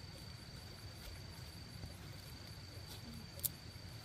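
A steady high-pitched insect trill over a low background rumble, with one sharp click about three and a half seconds in.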